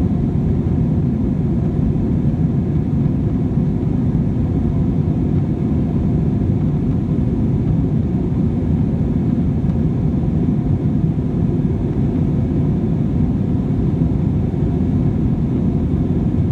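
Steady low rumble of a jet airliner's cabin in flight: the engines and the rush of air along the fuselage, heard from a window seat.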